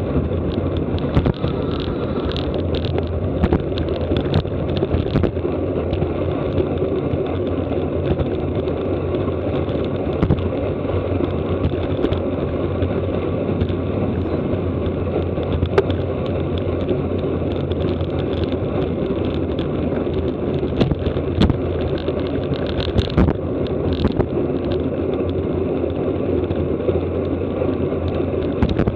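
Steady wind rush and road noise from riding a road bicycle at race speed, buffeting the camera's microphone, with a few short sharp clicks and knocks.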